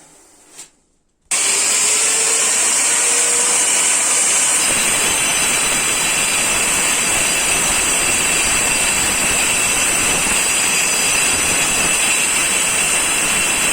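Angle grinder cutting into floor tile. It starts suddenly about a second in and runs steadily and loudly with a high whine.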